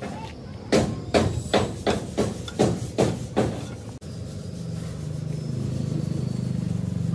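About eight hammer-like blows on metal, roughly three a second, each ringing briefly. About four and a half seconds in, a steady low mechanical drone sets in.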